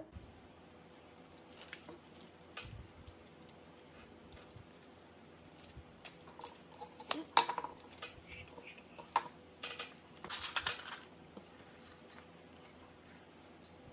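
Adhesive tape and its paper backing being handled and peeled: scattered rustles and crackles, busiest between about six and eleven seconds, with a longer peeling rasp near the end of that stretch.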